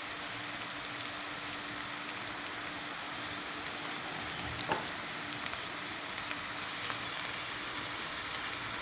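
Onions and peppers frying in oil in a pan: a steady sizzling hiss with a few faint pops, and a slightly louder click about halfway through.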